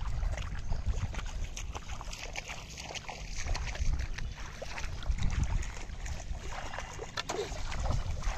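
Bare feet wading through shallow water in a flooded rice paddy: irregular splashing and sloshing with each step, over a low rumble of wind on the microphone.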